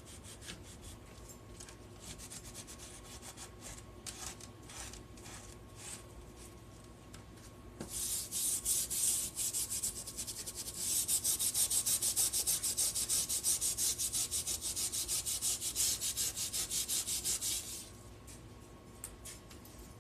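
A scouring pad scrubbed back and forth over a vinegar-soaked, rusty steel machete blade to rub the loosened rust off. The strokes are light and scattered at first; about eight seconds in they turn fast, hard and steady for about ten seconds, then ease off again near the end.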